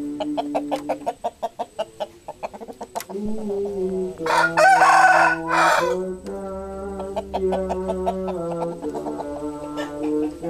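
Rooster beating its wings in a quick flurry, then crowing once for about a second and a half, over steady background music.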